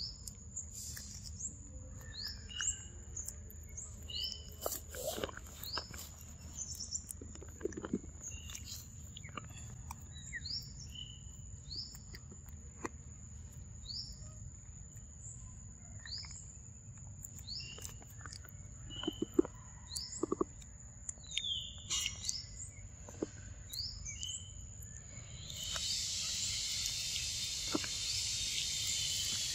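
Forest ambience: a bird gives short rising chirps about once a second over a steady high insect whine, with scattered wet clicks from a young monkey chewing mango close by. About 26 seconds in, a loud insect chorus starts up and carries on.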